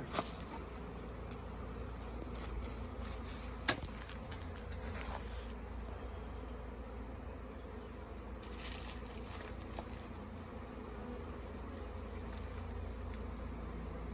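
A honey bee swarm buzzing steadily, many bees in flight around the swarm. A single sharp click sounds about four seconds in.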